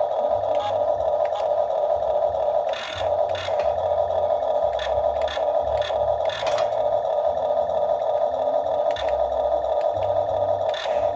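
Excavator at work: a steady mechanical running noise with scattered knocks and clatter.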